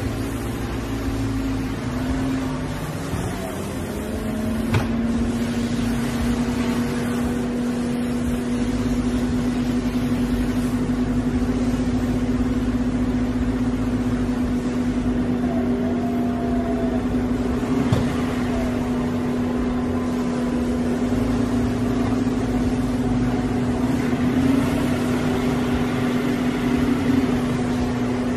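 Aston Martin Vantage convertible's power soft top running through its cycle, closing and then starting to open again: a steady mechanical hum with a low rumble underneath, which settles a little higher in pitch about three seconds in. Sharp clunks of the mechanism come about five seconds in and again midway, with brief squeaks in between.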